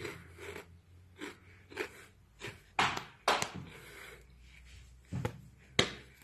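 About ten irregular thumps and sharp taps in a small tiled room, with no music: a dancer's feet stepping and stamping on the tile floor.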